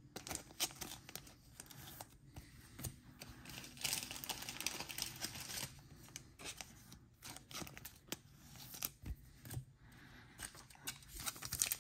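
Trading cards and a clear plastic card sleeve being handled, in short scattered rustles and clicks as the cards are sleeved and laid down on a mat.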